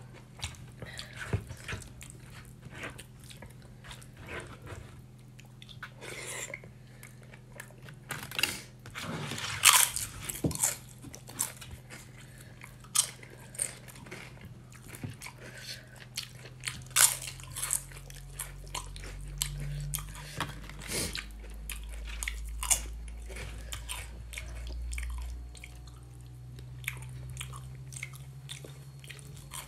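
Close-miked eating sounds: a man chewing mouthfuls of soft rice-and-lentil khichri, with irregular wet mouth clicks and smacks and scattered crisp crunches.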